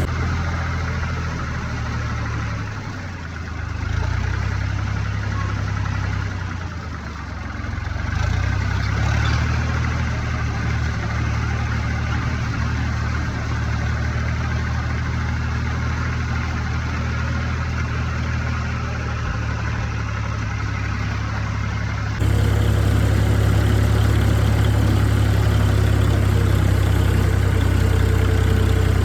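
Farm tractor's engine running steadily with a low, even drone as it drives across the field. It dips briefly twice early on, then gets abruptly louder about three quarters of the way through.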